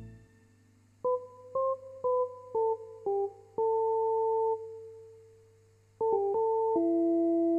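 Farfisa Pergamon analog electronic organ playing single notes: five short, detached notes about half a second apart, then a longer note that fades away slowly, and after a pause a quick run into held notes near the end.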